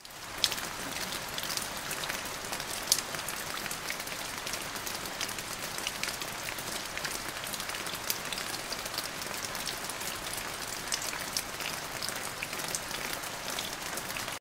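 Rain falling on wet lake ice: a steady hiss with frequent, irregular sharp ticks of drops.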